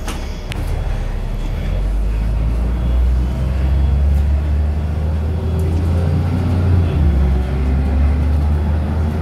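Jelcz M121I Mastero city bus heard from inside the cabin as it pulls away from a stop: a door clunk right at the start, then the engine note builds and rises as the bus accelerates, with a gear change about seven seconds in.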